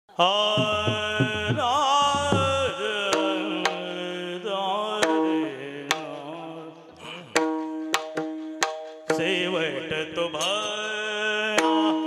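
Marathi devotional kirtan music: a man sings long, wavering, ornamented notes over a held drone. Drum strokes come in the first few seconds, and sharp percussion strikes are scattered throughout.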